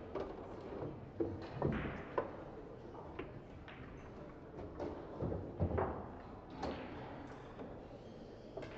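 Pool balls clicking and knocking as they are handled on the table, a handful of separate sharp clacks in two clusters, about a second in and about halfway through.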